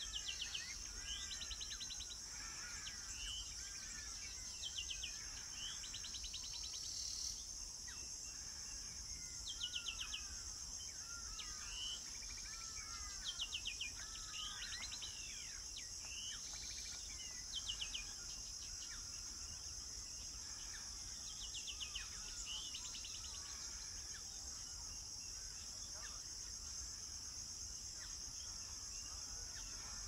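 A steady, high-pitched insect drone, with small songbirds singing over it. The songbirds give short, rapid trilled phrases every few seconds, along with scattered chirps.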